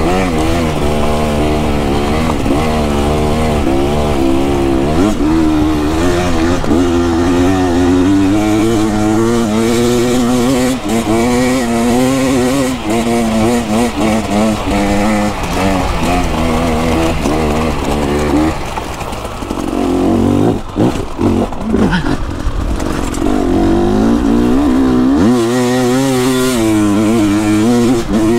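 Two-stroke dirt bike engine revving up and down under constantly changing throttle. About two-thirds of the way through it falls back for a few seconds, with several sharp knocks, then picks up again.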